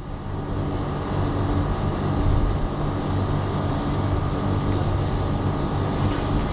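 Steady low hum of a vehicle, a few held low tones over street noise.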